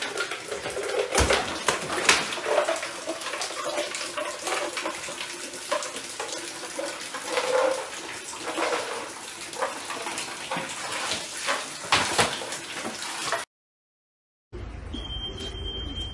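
Water running and splashing down through a collapsed kitchen ceiling from a burst pipe, with many sharp drips and splats. After a brief cut to silence near the end, a steady high tone sounds over a low hum.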